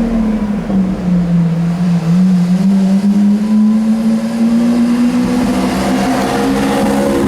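Lamborghini Aventador's V12 engine pulling at low revs: a steady drone that slowly climbs in pitch, turning harsher near the end as the revs build.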